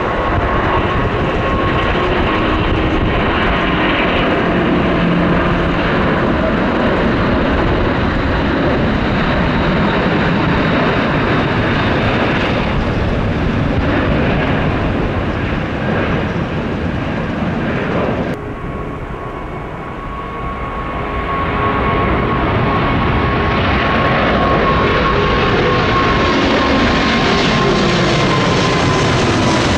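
Airbus A380 jet engines running loudly and steadily, with a whine running through the noise. About two-thirds of the way through, the sound cuts suddenly to a duller, quieter take, then builds again with a steady whine and slowly falling tones.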